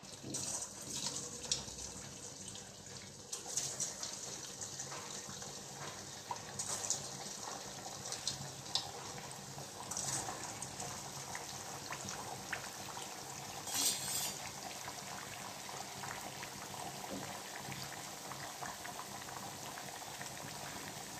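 Sabudana vadas deep-frying in hot oil in a steel kadhai: steady sizzling and bubbling dotted with crackles. There are several brief louder hisses as more vadas are slipped into the oil.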